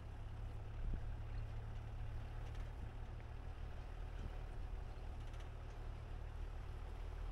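Low, steady rumble of a vehicle driving slowly over rough dirt ground, with a small bump about a second in.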